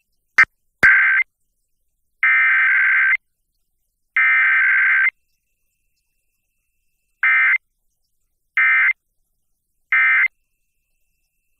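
Emergency Alert System SAME data bursts: harsh two-tone digital warbling. A brief click comes first, then three longer header bursts, the first cut short, and near the end three short end-of-message bursts about a second apart.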